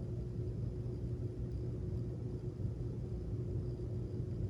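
Steady low rumble with a faint constant hum: background room noise.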